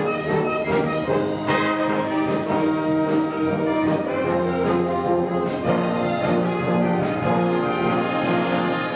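Concert wind band playing in full ensemble, the brass section to the fore with held chords over a steady beat.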